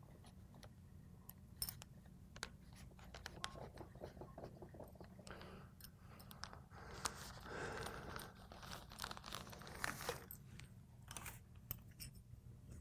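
Faint scattered clicks and short scrapes of metal parts being handled: a Hardinge lathe cross slide's ball-crank handle and graduated dial collar being turned and fitted by hand.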